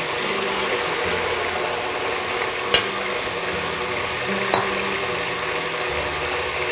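KitchenAid Artisan stand mixer running, its beater churning cream cheese with liquid gelatin in a steel bowl: a steady motor hum with wet sloshing. Two short clicks come about three and four and a half seconds in.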